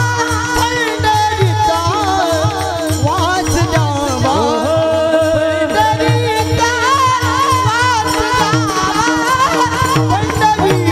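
Men's voices singing a Marathi devotional kirtan melody, with small brass hand cymbals (taal) clashed in rhythm, over a held drone note and steady low beats.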